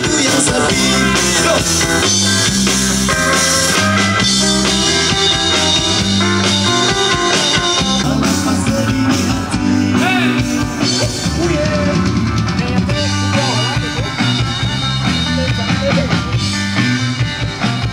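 Live rock band playing: electric guitars and a drum kit with a singer, the music loud and steady with a driving beat.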